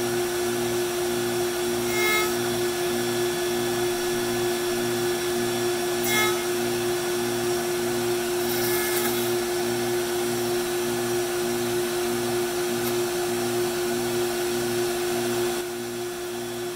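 AVID CNC router spindle running at a steady pitch while it is slowly jogged through the end of a walnut brace, shaving off the excess shoulder in a manual trim. Brief louder cutting bursts come about two, six and nine seconds in, and the sound drops slightly near the end.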